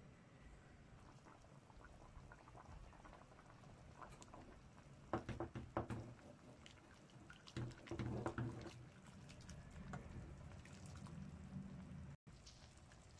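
Metal ladle stirring a chicken stew in an aluminium pan: soft liquid sloshing, with two bursts of ladle clinks and scrapes against the pan about five and eight seconds in.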